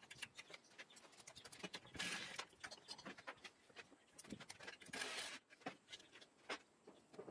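Faint clicks and clinks of bolts and metal engine parts being handled on a workbench, broken twice by short runs of a Ryobi cordless impact driver, about two seconds and five seconds in, as it undoes bolts on the engine.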